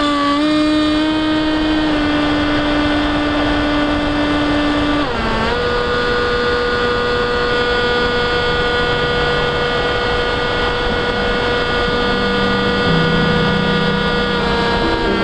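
Electric motor and propeller of a Dynam Hawk Sky RC plane running under power, a steady whine over wind rush. The pitch dips briefly about five seconds in, then holds steady again.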